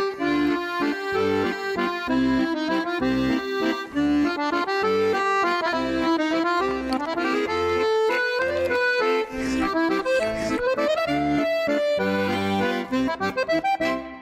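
Lively instrumental background music, a quick melody over a regular bass beat, cutting off at the very end.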